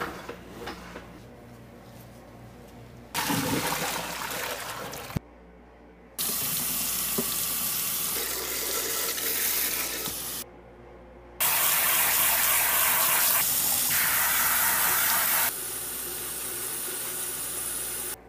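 Water from a kitchen sink sprayer and faucet running and splashing into the sink in several loud stretches that each start and stop suddenly.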